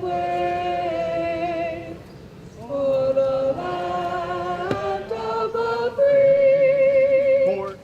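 Singing: long held notes with vibrato, the voice dropping away briefly about two seconds in, then rising to its loudest, highest held note near the end.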